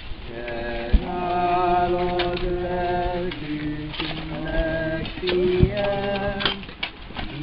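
Mourners singing a slow hymn in long held notes, over the scrape and knock of shovels throwing earth onto a grave, with one sharp knock about a second in.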